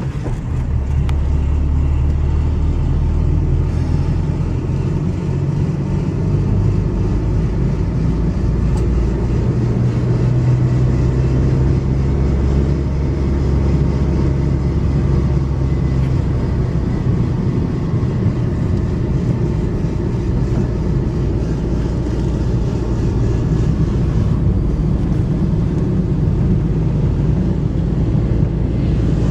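Car engine and road noise: a steady low drone whose engine pitch shifts several times, as with gear and speed changes.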